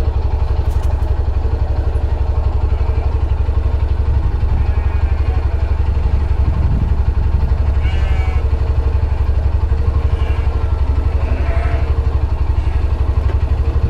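A motor vehicle's engine running steadily and close by: a loud low rumble with a fast, even pulse.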